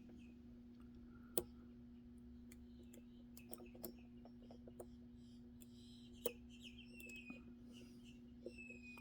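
Faint metallic clicks and ticks of a lock pick and tension wrench working the pin stack of a Magnum Everest padlock, with two sharper clicks about a second and a half in and again about six seconds in.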